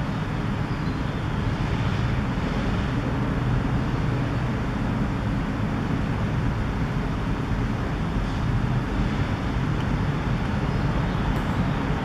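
Steady low rumbling outdoor noise with a fainter hiss above it, even throughout, with no distinct events.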